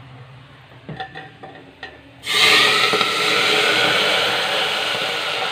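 A tadka of hot oil and fenugreek seeds poured from an iron tawa into a pot of mutton liver curry. After a couple of light knocks from the pan, a loud sizzle starts suddenly about two seconds in and carries on, slowly easing.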